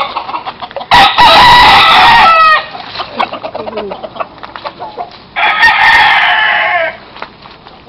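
Gamecocks crowing: two loud crows, one about a second in and one about five and a half seconds in, each lasting about a second and a half, the first ending in a falling note.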